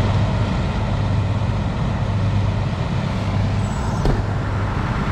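Heavy diesel engine running steadily with a low hum, with a single sharp click about four seconds in.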